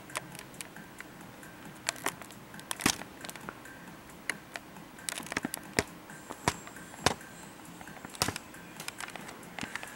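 Handling noise: scattered sharp clicks and light crackles at irregular intervals, the loudest about three seconds in.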